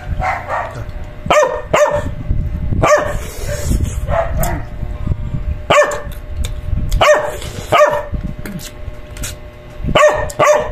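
A dog barking in short, fairly high barks, about nine of them, several coming in pairs half a second apart.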